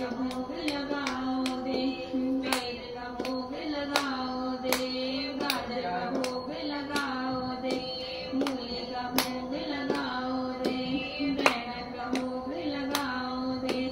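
Female and child voices singing a Hindi devotional folk song for Dev Uthani Ekadashi (Dev Uthani Gyaras), accompanied by hand claps that keep time. The claps come a couple of times a second, and one stands out loudest late on.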